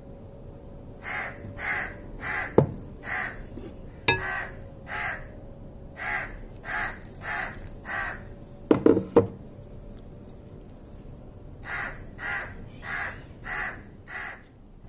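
A crow cawing in runs of short calls, about two a second, four runs in all. Between them come a few thumps of dough being kneaded in a glass bowl, the loudest cluster about nine seconds in.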